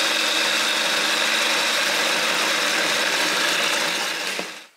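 Food processor motor running steadily, blending a walnut and mushroom paste while water thickened with agar-agar is poured in through the feed tube. It is switched off about four and a half seconds in and the sound cuts off suddenly.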